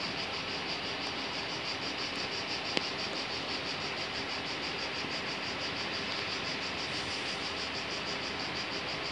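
Insects chirring steadily, a high-pitched song pulsing at a fast even rate, over a faint background hiss.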